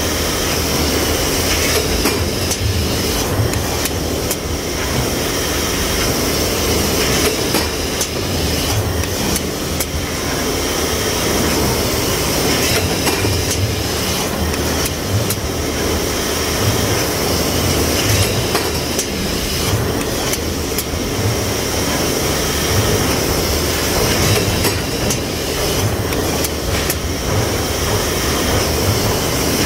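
Loud, steady running of stamping-press machinery, with an uneven low throb and scattered clicks and knocks.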